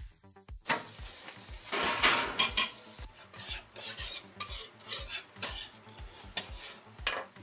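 Melted butter sizzling in a hot pan as flour is tipped onto it to start a roux. The loud hiss begins about a second in and is strongest for the next two seconds, then settles into scattered crackles.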